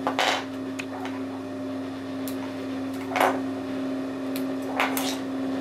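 A steady electric hum, with a few short rustling sounds about a second and a half apart. There are no stitching strokes: the sewing machine is not sewing.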